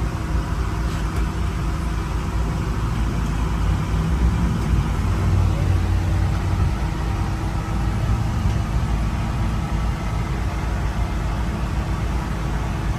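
Steady low rumble of a car running, heard from inside, with a faint steady hum and no change in pace.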